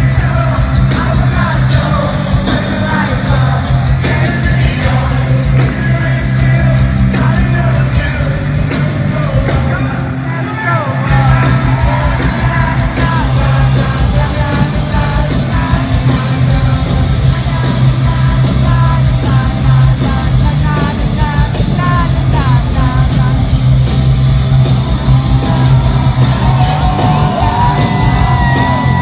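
Rock band playing live through an arena PA, with sung vocals and shouting voices over guitars and drums, echoing in a large hall. The bass and drums drop out for about a second roughly a third of the way through, then come back in.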